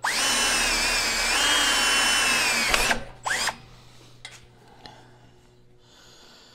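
Power drill boring a test hole for a spotlight mount: a steady whine for nearly three seconds, dipping slightly in pitch partway through, then it stops.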